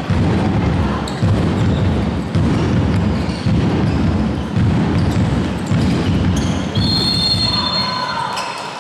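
Echoing sports-hall noise during a handball game: a deep rumble with a heavy thump about once a second. A high steady tone comes in near the end.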